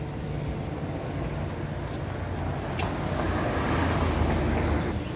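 Street traffic rumbling, with a minivan driving past close by: the tyre and engine noise swells from about three seconds in, peaks, and fades just before the end. A single sharp click comes just before the swell.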